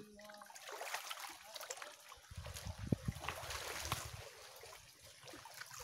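Shallow seawater lapping and trickling among shore rocks, with a few knocks and scuffs as someone clambers over the rock. A low rumble comes in a couple of seconds in.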